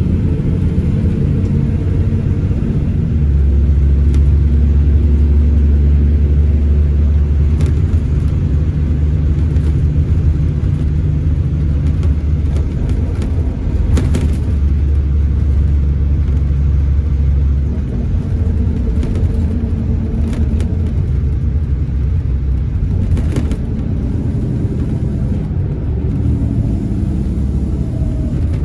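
Scania Irizar Intercentury 12.32 coach's diesel engine and running gear heard from inside the passenger cabin while driving, a steady low drone. The drone grows deeper and heavier from about three seconds in to about eighteen seconds, then eases. A few sharp clicks are heard on top.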